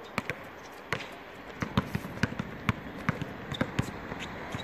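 Basketball being dribbled on a hard court: a string of sharp bounces at an uneven pace, a few a second.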